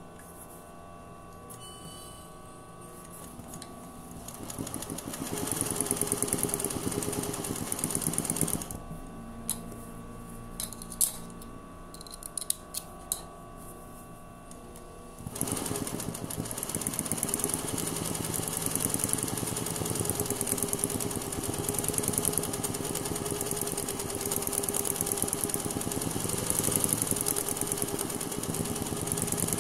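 Sewing machine stitching free-motion machine embroidery through fabric in a hoop, running at a fast even stitch rate in a burst of about four seconds, stopping for several seconds with a few sharp clicks and a steady hum, then running steadily again through the second half.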